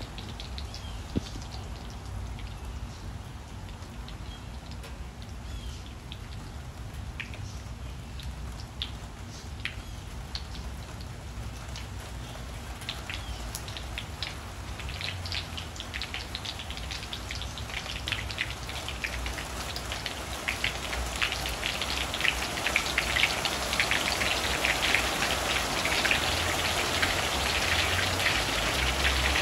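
Rain falling: scattered single drops at first, growing denser and louder into a steady shower over the second half.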